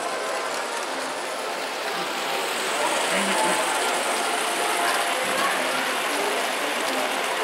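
Model electric trains running on a layout's track, giving a steady mechanical rattle and clatter.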